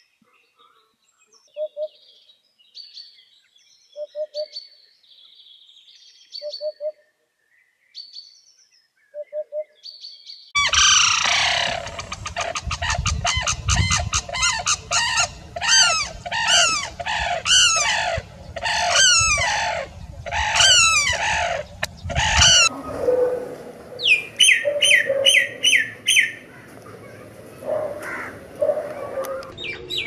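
A Eurasian hoopoe gives its soft three-note 'oop-oop-oop' call four times, about two and a half seconds apart. About a third of the way in, a pair of sarus cranes break into loud, fast unison trumpeting that lasts about twelve seconds and stops abruptly. A common myna's whistles and chatter follow.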